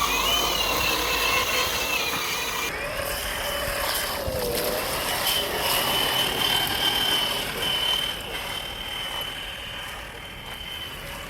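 Brushed electric motor and geared drivetrain of a 1/10-scale RC crawler truck whining, the pitch rising and falling with the throttle. It gets quieter after about eight seconds.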